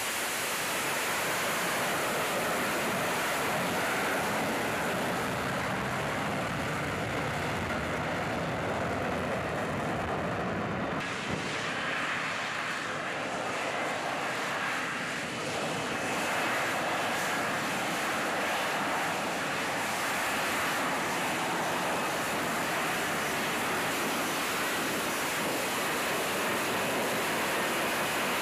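F-35B jet hovering on its engine and lift fan: a steady rushing jet noise that thins out about eleven seconds in, then fills back in.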